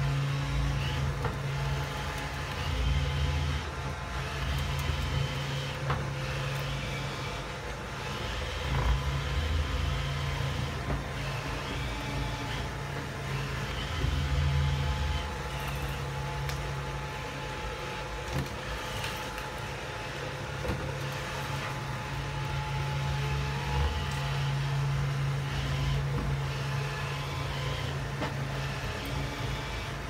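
iRobot Roomba 620 robot vacuum running: a steady hum from its vacuum and brush motors as it sweeps up rolled oats, with a few light ticks.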